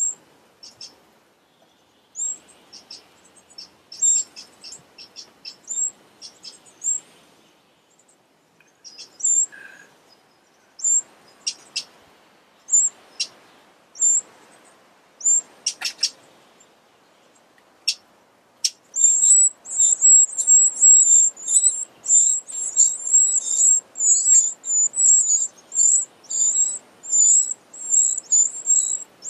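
Eurasian wren nestlings calling from the nest: scattered short, very high peeps, then from about two-thirds of the way in a rapid, continuous high-pitched begging chorus while a parent wren is at the nest to feed them.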